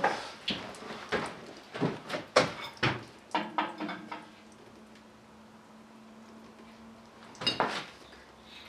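Tools and metal parts being handled and set down: a quick series of knocks and clatters, then quiet with a faint steady hum, and one more clunk near the end.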